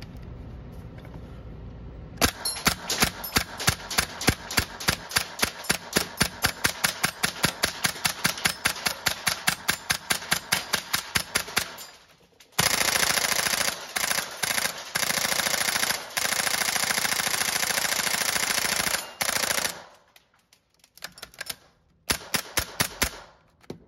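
Daytona MSK airsoft rifle firing down range: from about two seconds in, a long string of separate sharp shots, several a second, then from about halfway long unbroken rapid-fire bursts with short breaks, and after a pause a short burst of a few shots near the end.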